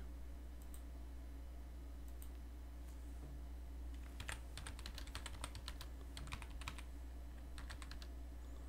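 Typing on a computer keyboard: a quick run of keystrokes from about four seconds in to nearly seven seconds, and a few more near the end, with a couple of single clicks earlier, over a low steady hum.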